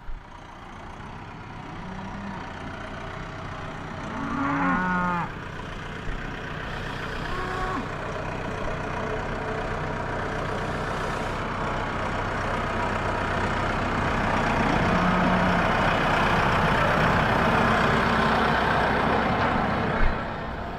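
Cattle mooing, one loud bending moo lasting about a second and fainter calls later, over a vehicle engine running steadily that gets louder in the second half.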